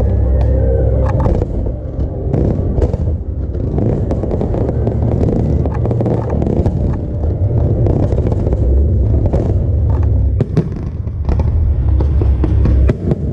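Fireworks going off: a continuous low rumble with scattered sharp bangs and crackles, several coming close together near the end, with show music in the background.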